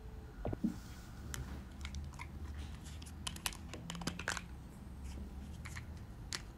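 Lips freshly coated in red lipstick smacking and pressing together close to the microphone: a scattered string of small, sharp, wet clicks over a faint low hum.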